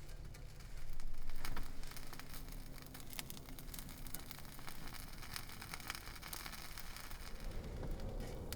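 Rustling and light clicks of things being handled, with a louder rustle about a second in, over a low steady hum.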